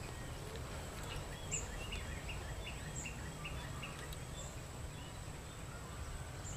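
Outdoor ambience: a bird giving a run of short repeated chirps, about three a second for the first four seconds, with fainter higher chirps now and then, over a thin steady high-pitched tone and a low background rumble.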